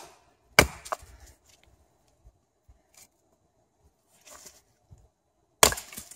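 Hatchet blows splitting short lengths of cedar on a stump chopping block. A sharp chop comes about half a second in with a lighter knock just after. A soft rustle follows a few seconds later, then another sharp chop near the end.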